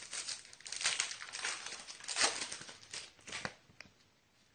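Trading card pack wrapper crinkling and tearing as it is ripped open, a run of rough rustles that dies away about three and a half seconds in.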